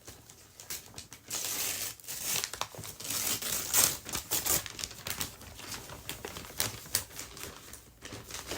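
Gift packaging being torn open and crumpled by hand: irregular crackling and crinkling with sharp rips, busiest and loudest between about one and four and a half seconds in.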